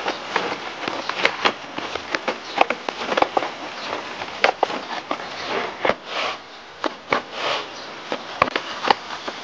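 Hands kneading and pressing steamed-bun dough on a floured wooden board: irregular soft slaps and sharp taps as the dough is worked and torn into pieces.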